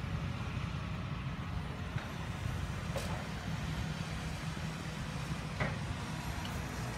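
Hitachi Zaxis 350 tracked excavator's diesel engine running steadily as a low, even drone, with a few short sharp knocks.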